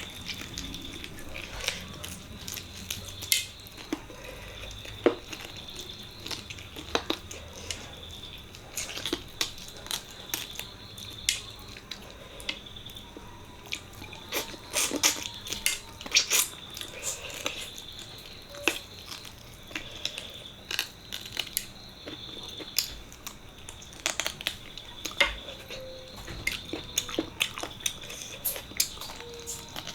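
Close-miked eating sounds of mutton leg (paya) curry and rice: irregular wet mouth clicks, smacks and chewing. A faint steady high whine runs underneath.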